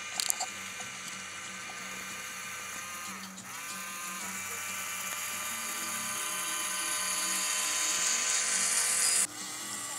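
Steady high whine of the RC paddle-wheel boat's two small electric motors (knock-off Lego L motors) driving the paddle wheels. There are a few light clicks just after the start. The whine dips briefly about three seconds in and climbs back in pitch, grows louder as the boat comes near, then drops off sharply near the end.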